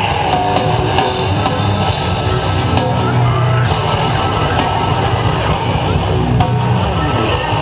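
Loud rock music in a heavy-metal style, dense and unbroken, with guitar.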